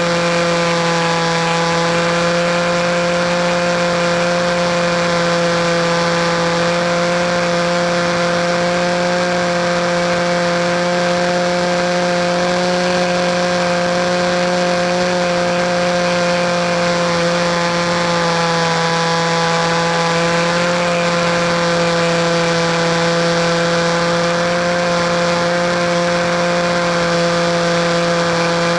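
RC model airplane engine running at a steady high throttle, its pitch wavering only slightly with a small dip about two-thirds of the way through.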